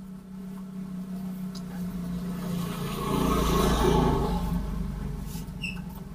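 A motor vehicle passing by: its engine noise builds up, peaks about the middle, and fades away.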